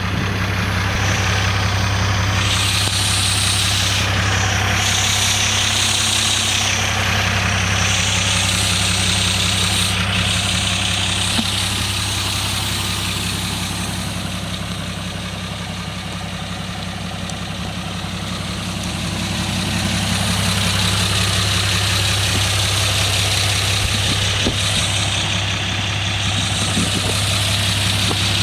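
White MY60B forklift's propane-fuelled engine idling steadily, a little quieter for several seconds midway.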